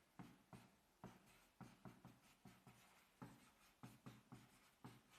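Faint handwriting sounds: a run of short, quick scratching strokes, about three or four a second and unevenly spaced, as a writing tool is drawn over a surface.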